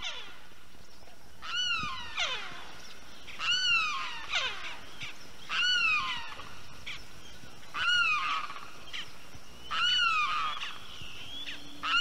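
Limpkin calling again and again, a screeching call about once every two seconds, each call rising briefly and then dropping away in pitch.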